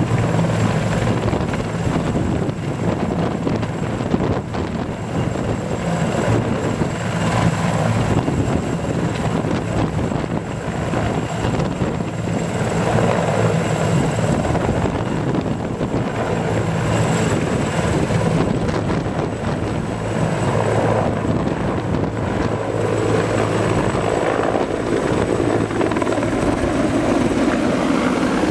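Sikorsky CH-53 heavy transport helicopter hovering and lifting a slung vehicle load: loud, steady rotor and turbine noise with a low steady hum and a thin high turbine whine on top.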